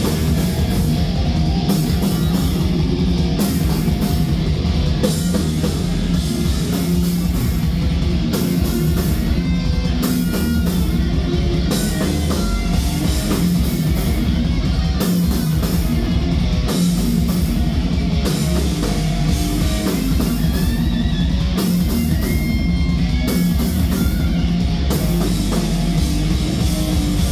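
Live heavy metal band playing loud, with two electric guitars over a drum kit.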